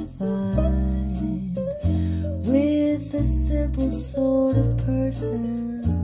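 Music played back through stand-mount hi-fi speakers: an instrumental passage led by acoustic guitar over a deep bass line that changes note every second or so.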